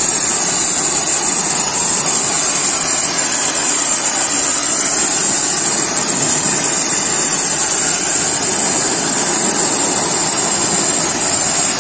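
Global Power GPMK4 electric pressure washer spraying its high-pressure water jet onto a motorcycle: a loud, steady hiss of the jet and the spray splashing off the bike.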